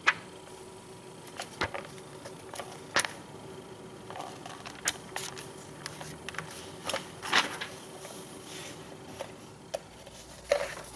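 Pages of a mail-order catalogue being turned and handled: scattered soft rustles and clicks every second or two, over a faint steady hum.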